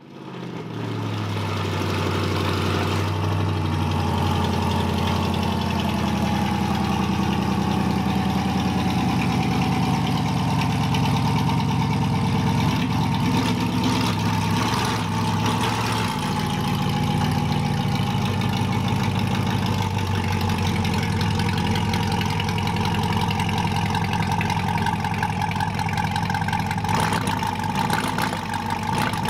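Chevrolet C8 Corvette's 6.2-litre LT2 V8 idling steadily while the car creeps backward out of an enclosed car-hauler trailer. The sound fades up from silence in the first second or two.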